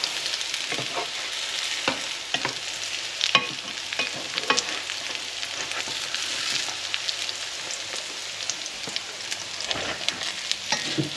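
Quarkkeulchen (potato and quark patties) frying in fat in a pan: a steady sizzle with scattered crackles and pops, a few louder pops in the first half.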